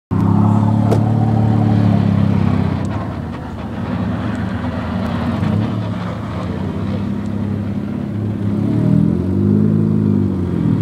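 Honda Civic Shuttle's engine revving hard as the car slides on snow, held at high revs at first, easing off, then rising and falling again near the end.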